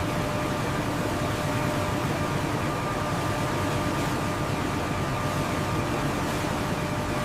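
Steady machinery hum and hiss with faint steady whine tones, as of mill machinery running; it cuts off suddenly at the end.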